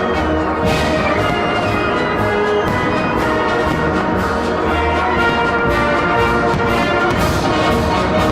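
Orchestral music with prominent brass and a steady, evenly repeating beat.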